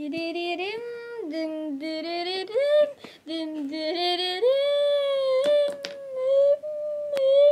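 A child singing a tune without clear words, the notes stepping up and down, then a long high note held through the second half. A few light taps sound along with it.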